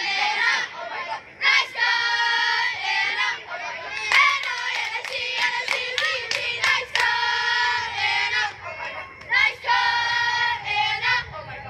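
A group of young girls chanting a sing-song softball dugout cheer in unison, with a run of quick hand claps in the middle.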